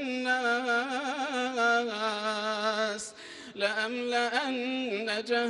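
A man reciting the Quran in melodic tajwid chant. Long held, ornamented notes are drawn out on the words about jinn and men, with a short break about three seconds in.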